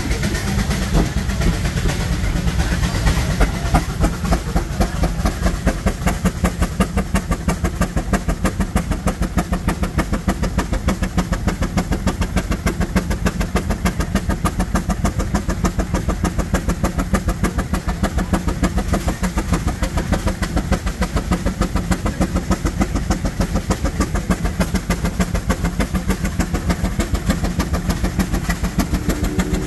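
Antique engine running with a steady, even beat of exhaust pulses over a low hum.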